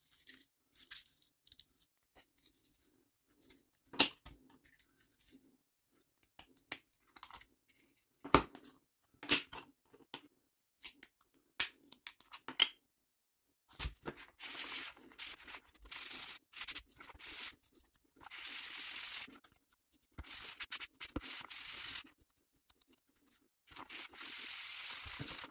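Plastic clicks and snaps as a Volvo key fob's case is handled and pried apart. About halfway through, rubbing strokes begin: the fob's plastic shell is sanded back and forth on a sanding pad in rasping runs of about a second each.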